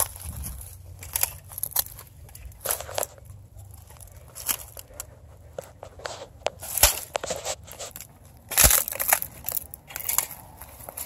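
Footsteps pushing through dense brush: dry stalks and twigs crunching and crackling underfoot, with leaves rustling, in irregular steps over a low steady rumble.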